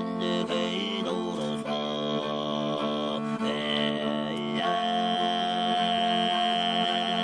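Background music: a chant-like vocal over a steady low drone, with a long held high tone above it.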